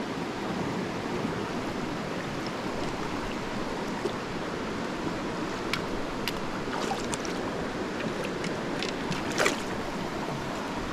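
Steady rush of a small stream's shallow current flowing past. A few faint clicks and a short louder rustle come near the end.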